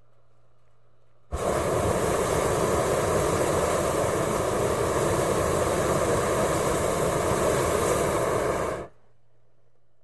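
Hot-air balloon propane burner firing in one steady, loud blast of about seven and a half seconds that starts and cuts off abruptly. A faint hiss and hum from the pilot light is heard before and after the blast.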